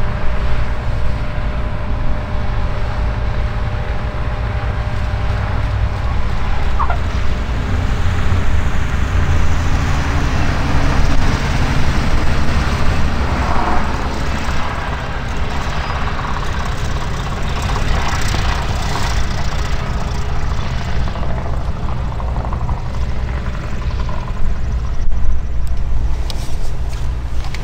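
An engine running steadily, a low, even drone that swells slightly partway through.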